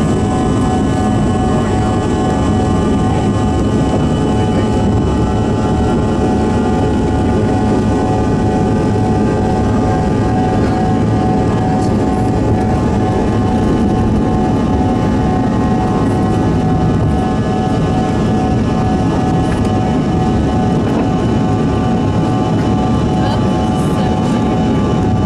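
Cabin noise of a Bombardier CRJ-200's two rear-mounted GE CF34 turbofans at full takeoff power: a steady loud roar with several high whining tones, through the takeoff roll and into the climb. A faint tone glides up in pitch about a quarter of the way through.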